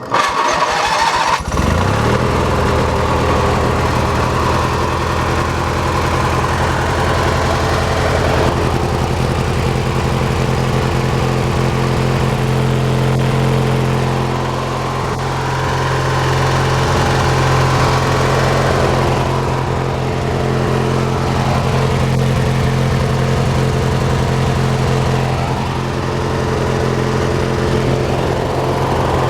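Hechinger (MTD-built) lawn tractor started with its newly wired key switch: the starter cranks for about a second and a half, then the engine catches and runs steadily.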